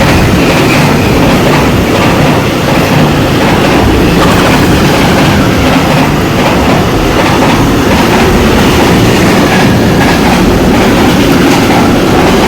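A train passing through the station at speed without stopping, very fast and loud, a steady rush of air and wheels on rails that drops away just after it has gone by.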